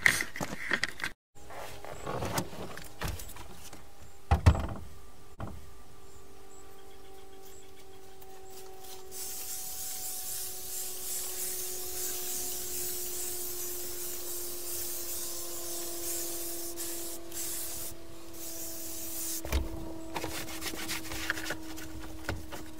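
A cloth rag rubbing and wiping over a truck's molded interior door panel, with a few knocks in the first few seconds. Behind it, from about five seconds in, a faint steady drone of several tones slowly sinks in pitch, joined by a high hiss for about ten seconds in the middle.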